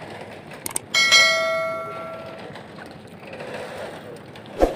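Subscribe-button animation sound effect: a couple of quick clicks, then a bright notification bell chime that rings out and fades over about a second and a half.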